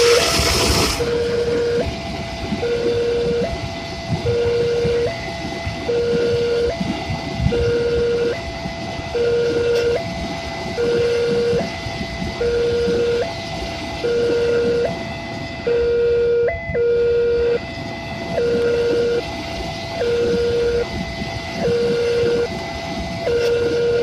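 Railway level-crossing warning alarm sounding continuously, switching back and forth between a low and a higher tone roughly every two-thirds of a second. Under it runs the rumble and clatter of a passing freight train, with a loud rush of noise right at the start.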